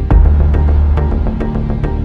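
Background music: a steady electronic beat of about four to five ticks a second over sustained deep bass, with a heavy bass hit just after the start.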